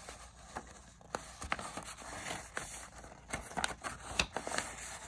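Sheets of paper being handled and slid across a desk: rustling with scattered light taps and scrapes, busiest near the end.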